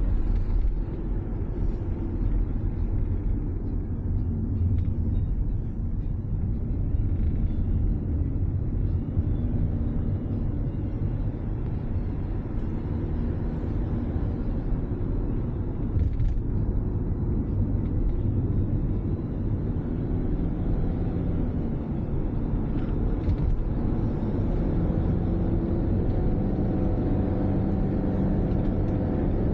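Steady low rumble of a car driving, with road noise and engine as heard from inside the cabin. A faint engine hum becomes clearer near the end.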